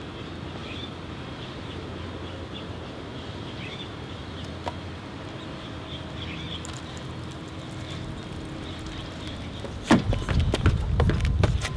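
Steady street ambience with a few faint high chirps, then about ten seconds in a burst of loud thumps and scuffling footsteps as someone hurries off.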